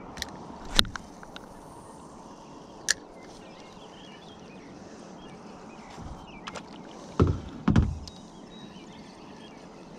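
Handling noise in a plastic kayak: a few sharp clicks from a spinning reel and rod, then two dull, loud knocks on the hull about seven seconds in, over a steady low background noise.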